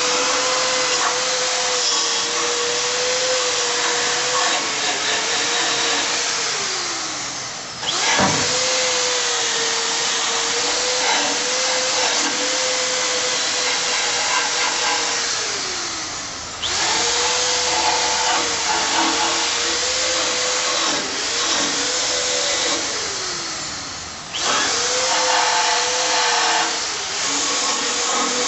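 Cordless drill spinning a wire wheel against the natural edges of a manzanita bowl: a steady motor whine over a harsh brushing hiss from the wire bristles. The drill is let off and spins down three times, about every eight seconds, and each time starts again sharply. The wire wheel is cleaning loose bark and grit off the bowl's natural edges.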